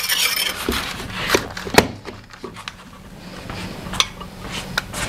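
Metal spoon stirring a potato-starch mixture in a small steel saucepan, scraping and clinking sharply against the pan several times at irregular intervals, the loudest clink a little under two seconds in.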